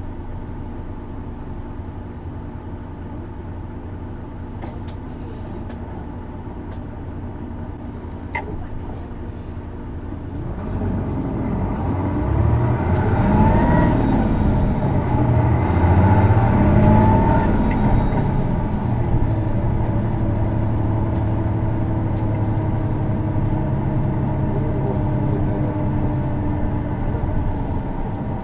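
Isuzu Erga city bus's diesel engine heard from inside the cabin. It runs steadily at first, then from about ten seconds in it accelerates, its pitch rising and falling twice as it shifts up, before settling into steady cruising. This bus's engine has a distinctive odd noise, which is also found on other PKG-series Ergas, especially automatics.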